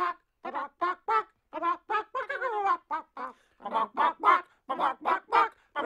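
Chicken clucking: a quick run of short pitched clucks, about three a second, with one longer drawn-out cluck a little past two seconds in.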